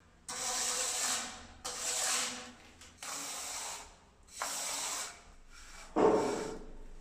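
Rubbing on the edge of a fresh concrete wash-basin slab: four rasping strokes of about a second each, then a louder, deeper knock about six seconds in.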